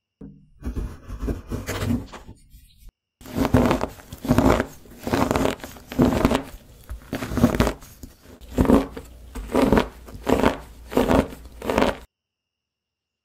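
Kitchen knife chopping a block of dark chocolate on a wooden cutting board: crunchy cutting strokes about two a second, with a brief pause about three seconds in, stopping about a second before the end.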